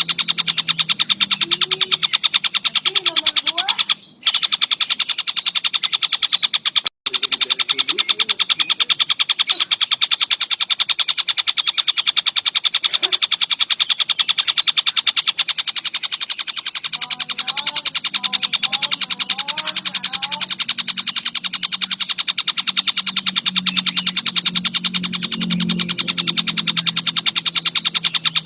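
Tengkek buto (collared kingfisher) calling without pause in a loud, rapid, chattering run of sharp repeated notes, broken by two short gaps early on. Fainter, lower gliding calls sound beneath it.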